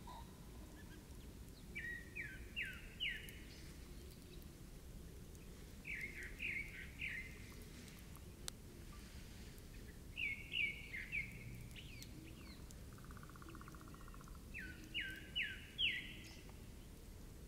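A bird singing a short phrase of three or four quick downslurred notes, repeated four times about every four seconds, over a steady faint outdoor hiss. A brief, lower buzzy trill comes in between, about twelve seconds in.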